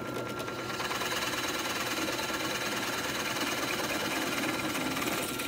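Drill press running with a Forstner bit boring steadily through a wooden board, close to breaking through and popping the plug free.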